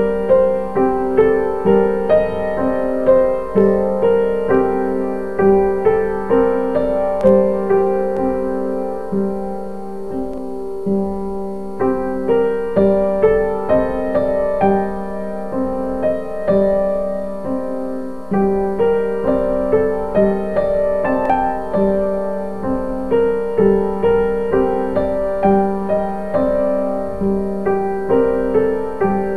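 Piano music: a flowing line of notes, each struck and fading, played continuously over steady accompanying tones.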